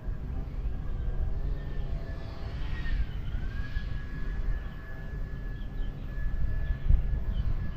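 Amtrak passenger train with its diesel locomotive coming through: a low rumble under a steady high whine that dips in pitch and recovers about three seconds in.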